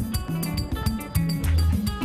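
Music with a steady beat and a stepping bass line.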